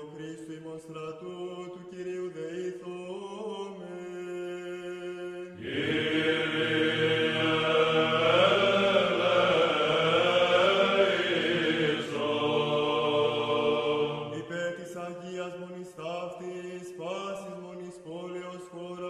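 Byzantine chant of the Greek Orthodox Divine Liturgy: a sung melody over a steady held low note. It swells into a louder, fuller passage from about six to fourteen seconds in.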